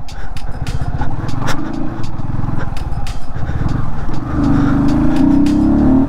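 Motorcycle engine running over a rough off-road track, with scattered sharp knocks from the bumpy ground. About four seconds in, the revs climb and the engine note rises steadily to the end.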